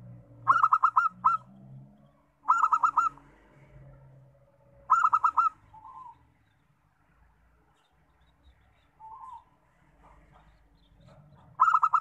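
Zebra dove singing: four short phrases of rapid staccato cooing notes, each under a second long, with a couple of soft single coos between them.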